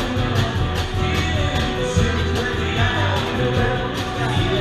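Live rock band playing, amplified through the PA: a steady drum beat with bass and electric guitar.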